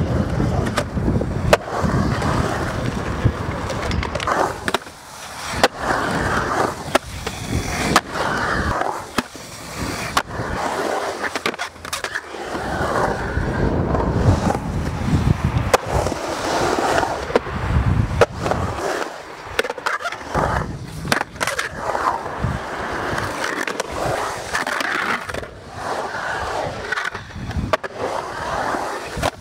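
Skateboard wheels rolling and carving on concrete, broken by many sharp knocks and clacks of the board.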